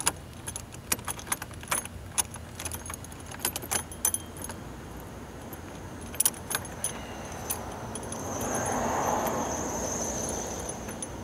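Small metal clicks and rattles from a bolt, lock washer and nut knocking against a license plate bracket and a plastic grille as they are fitted by hand, thickest in the first half. About two-thirds of the way in, a swell of rushing noise rises and fades over a few seconds.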